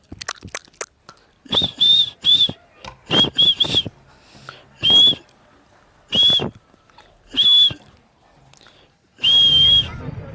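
A pet parrot giving short, shrill whistled calls at one steady pitch: two quick runs of three notes, then three single notes a second or so apart, and one longer call near the end. There are a few faint clicks about a second in.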